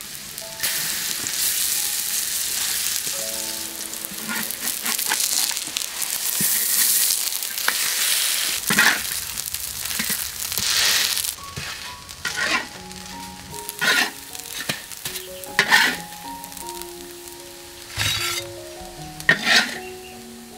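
Honeysuckle batter frying in hot oil in a wok: a loud, steady sizzle for about the first ten seconds, then a quieter sizzle. In the quieter part a metal spatula scrapes and knocks against the wok several times.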